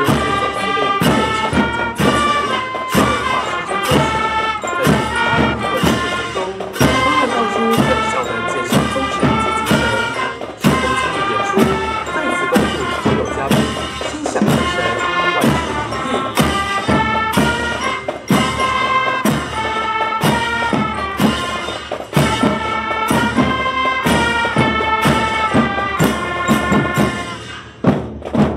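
Military drum and bugle corps playing: a brass melody over steady, regular drum beats, fading out shortly before the end.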